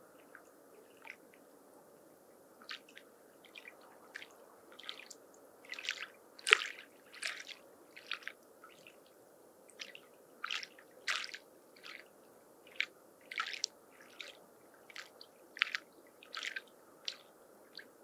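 Small lake waves lapping against the shore in short, irregular splashes, about one or two a second, with the loudest splash about six seconds in.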